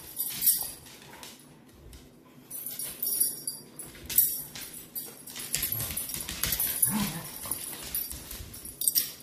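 Large dogs (German shepherd, Dutch shepherd, Weimaraner) play-wrestling: scattered clicks and scuffles of paws and claws on a hardwood floor, with collar tags jingling several times. There is one short, low dog vocal sound about seven seconds in.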